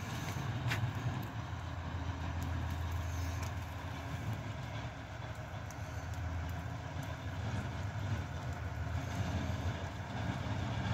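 Engine of a snowplow working down the street, a steady low rumble that grows a little louder near the end as it approaches.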